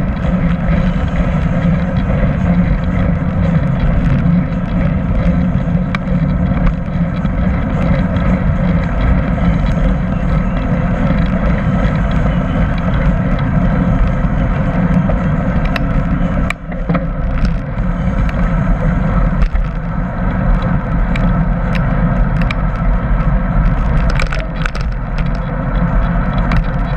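Steady wind rush and road rumble on a bicycle-mounted camera's microphone while riding along at speed, with a brief dip about two-thirds of the way through and a scatter of small clicks and rattles near the end.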